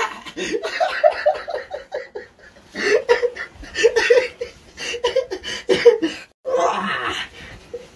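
A man laughing hard, in runs of short, quick repeated "ha" sounds with brief pauses between the runs.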